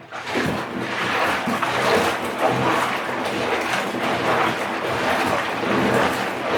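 Water splashing and sloshing while bulk Lego bricks are washed. It starts suddenly and keeps on at a steady level.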